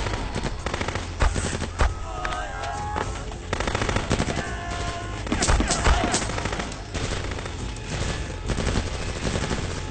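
Action-film gunfire: rapid machine-gun bursts and single shots throughout, with the loudest shots about a second in and again near the middle.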